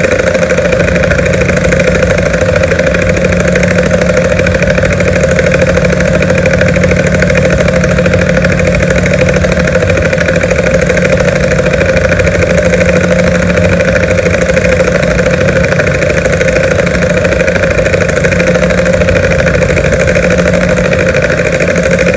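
A group of helicopters flying together: loud, steady rotor and engine noise that holds at an even level.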